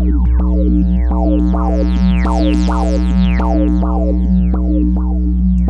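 Make Noise Eurorack modular synthesizer patch playing overlapping plucked notes, about three a second, each with a quick downward pitch sweep, over a steady low drone. The notes are paced by PoliMATHS envelope layers.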